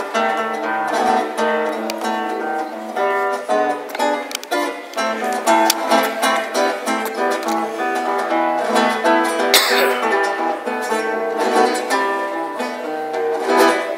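Nylon-string classical guitar played solo, a quick run of plucked single notes and chords. About ten seconds in there is one short burst of noise over the playing.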